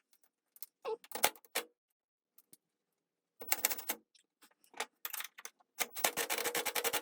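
Ratchet wrench clicking as a bolt on a hood-shock bracket is tightened: a few scattered metal clicks, a short run of rapid clicks about halfway through, then a fast, even run of clicks near the end.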